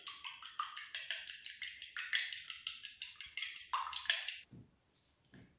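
Egg and milk being beaten briskly with a utensil in a small glass bowl: a rapid, even run of clicking strokes against the glass that stops about four and a half seconds in. A single light tap follows near the end.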